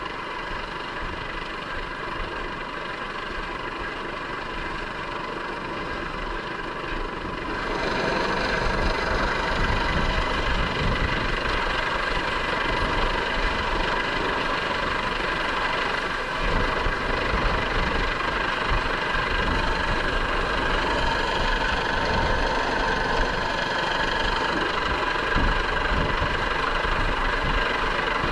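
US Coast Guard MH-65 Dolphin helicopter hovering close overhead: a steady turbine whine and rotor noise. It gets louder about seven seconds in, with more low rumble from the rotor wash.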